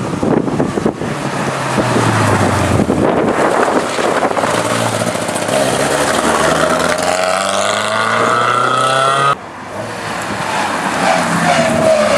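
Ford Escort Mk2 rally cars driven flat out on a stage, the engine note climbing and dropping as the drivers accelerate and lift. The sound cuts abruptly about nine seconds in to a second car accelerating hard.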